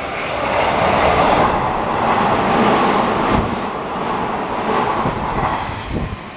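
Sanyo Electric Railway train passing through the station at speed without stopping: a loud rush of wheels on the rails that swells about a second in and fades near the end.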